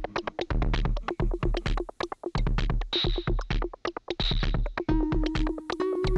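Electronic background music: a fast, steady beat under held synth notes that shift to a new chord about five seconds in.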